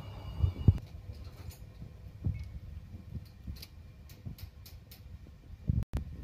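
Lathe running with a steady whine and hum as it turns a car flywheel, cutting off under a second in. Then light metal clicks and low knocks as a clutch pressure plate is handled and seated against the flywheel.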